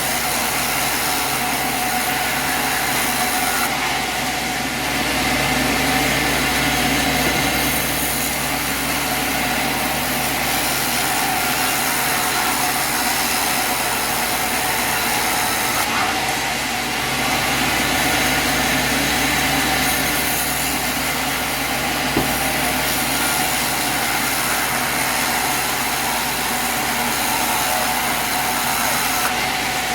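Sawmill's small engine running steadily at a constant speed.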